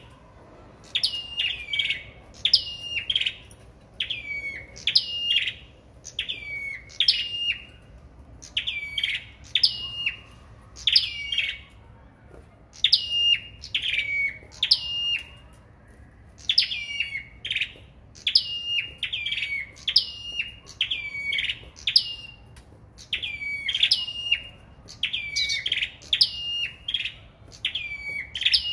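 Caged small songbirds sold as 'sâu đầu đỏ' singing against each other in a song duel: short, high chirping phrases that rise and fall, repeated in quick runs of two to four with brief pauses between.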